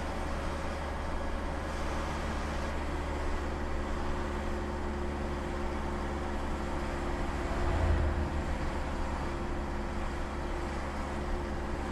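Steady road and engine noise of a car driving slowly, heard from inside the cabin, with a single low thump about eight seconds in.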